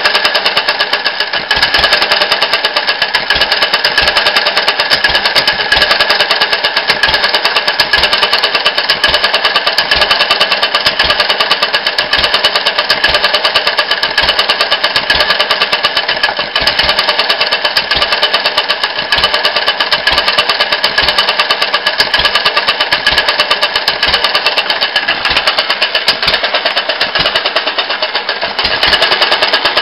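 Homemade open-crank single-cylinder petrol engine running steadily under its governor, hit-and-miss style: a fast, even clatter of the exposed crank and valve gear over low firing thumps that come at uneven intervals.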